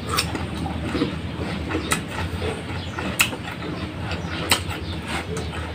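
Crunching and chewing of raw jicama (singkamas) slices, with sharp crisp crunches about once a second over a steady low hum.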